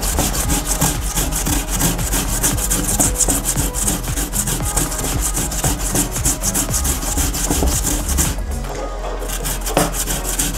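Raw potato being grated on the fine side of a stainless-steel box grater: quick, repeated rasping strokes that thin out about eight seconds in.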